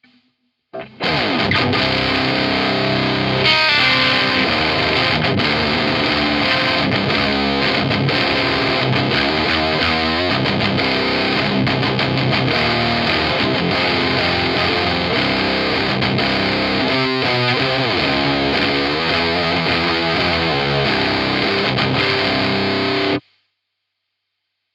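Electric guitar played through the Zander Circuitry Terra Firma fuzz/power-amp-style distortion pedal, heavily distorted chords and riffs set by one of its rotary-switch clipping options. It starts just under a second in and cuts off suddenly near the end.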